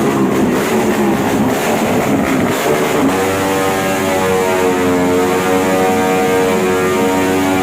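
Motorcycle with a loud aftermarket exhaust revving roughly, then held at a steady high rev from about three seconds in, giving an even, unbroken drone.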